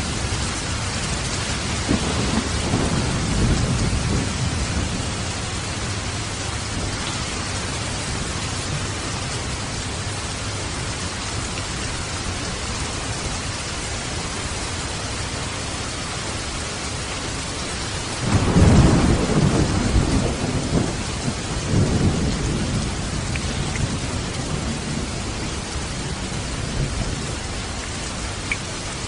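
Steady rain hiss with low rolls of thunder: one rumble about two seconds in, and a louder, longer one starting near eighteen seconds that trails off a few seconds later.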